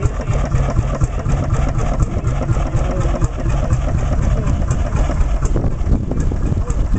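Antique steel-wheeled tractor's engine, with large spoked flywheels, running steadily with a fast even beat.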